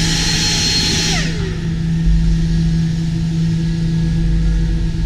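Black Diamond JetForce avalanche airbag's electric fan running with a loud whooshing whine, then spinning down about a second in. A steady low mechanical hum continues underneath.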